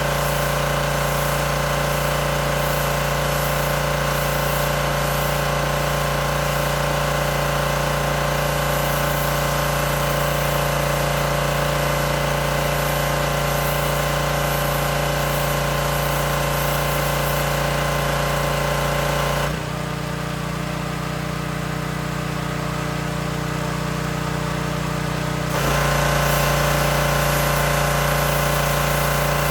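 Teande 4200 PSI gas pressure washer running steadily, its engine note mixed with the hiss of the high-pressure spray. About twenty seconds in the spray hiss drops out for about six seconds while the engine keeps running, then the spray comes back.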